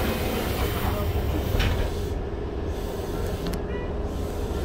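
Inside a Keikyu 1500 series railcar standing at a station: a steady low rumble and hum from the car's onboard equipment, with one sharp click about three and a half seconds in.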